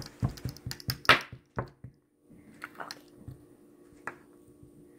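Light handling noises of a butter knife and a lump of slime on a wooden table: a quick cluster of knocks, clicks and a soft squish in the first two seconds, then a few faint taps.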